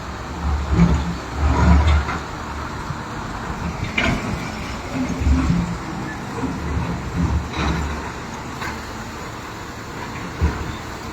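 Heavy construction machinery running, with several low rumbling surges and a few short sharp knocks.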